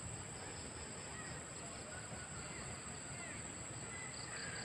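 Riverside nature ambience: insects droning steadily on a high note, with pulsing chirps, and scattered short bird calls over a low rumble of background noise.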